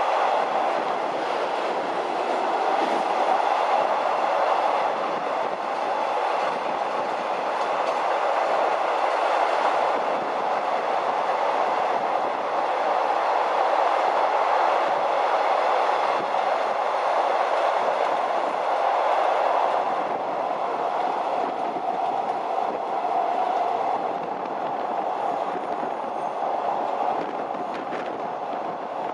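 Long-distance passenger train running steadily along the track: a continuous rumble of wheels on rails, a little quieter after about twenty seconds.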